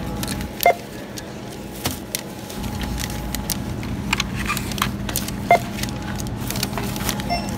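Self-checkout barcode scanner beeping as items are scanned: two short beeps, one just under a second in and one about five and a half seconds in, and a fainter beep near the end. Under them run a steady store hum and small clicks of boxes being handled.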